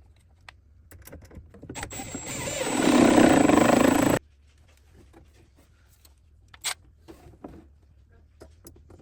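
Cordless drill driving a screw to fasten a drawer slide's cabinet member to the face frame. It builds up over about two seconds, runs steadily, then stops suddenly. A few light clicks and knocks follow.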